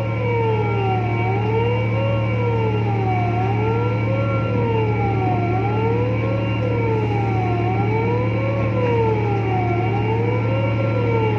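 A siren wailing, its pitch rising and falling evenly about every two seconds, over a steady low machinery hum.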